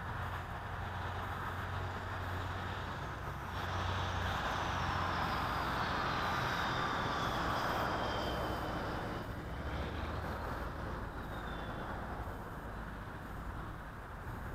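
Steady outdoor traffic rumble, with a vehicle passing that swells from about four seconds in until about nine, a faint falling whine riding on it.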